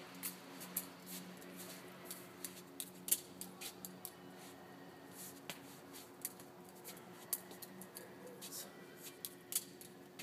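Benchmade 51 butterfly knife being flipped: irregular sharp metallic clicks and clacks as the handles swing around and strike each other and the blade. A steady low hum runs underneath.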